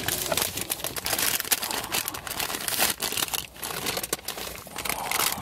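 Paper takeout bag crinkling and rustling as it is handled, a rapid run of irregular crackles.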